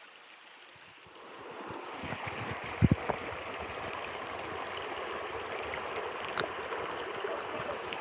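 River water flowing steadily, swelling in after about a second and holding at an even level. Two brief low thumps just before three seconds in.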